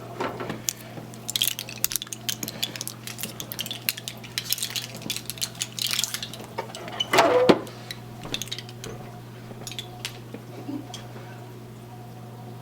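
Rapid clicking and crackling of a plastic tray of frozen bloodworm cubes being handled and cubes popped out, with a louder clatter about seven seconds in. Then only a few scattered clicks. A steady low hum runs underneath.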